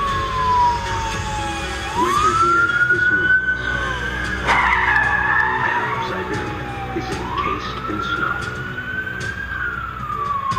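Emergency vehicle siren in a slow wail: the pitch sweeps quickly up, climbs slowly, then slides back down, about every five seconds, twice over. A sharp knock comes about four and a half seconds in, over steady traffic noise.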